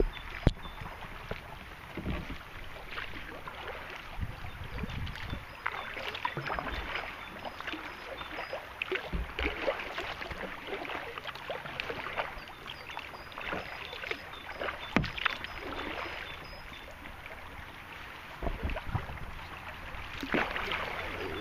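Kayak paddling on a river: irregular splashes and drips of paddle blades in the water as the boat moves along, with an occasional sharp knock.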